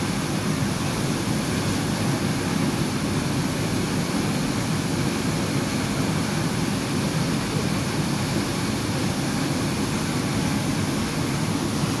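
Waterfall pouring into a rock plunge pool: a steady, unbroken rush of falling water.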